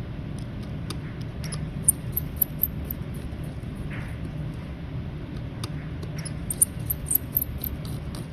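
Light clicks and taps of small tools on a watch's case and battery parts, coming in two short flurries over a steady low hum.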